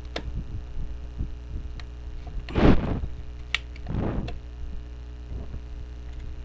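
Hands working on a plastic inkjet printer: a few light clicks and two short rustling, scraping sounds, over a steady low hum.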